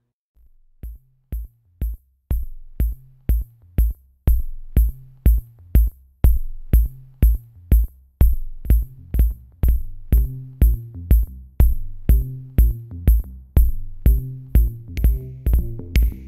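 Background electronic music with a steady drum-machine beat, about two beats a second, over a bass line; it starts about half a second in and builds.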